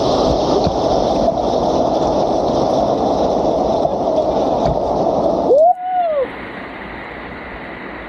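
Waterfall water rushing and splashing steadily. About five and a half seconds in, the sound cuts abruptly to a quieter, even rush, with a brief rising-and-falling tone at the break.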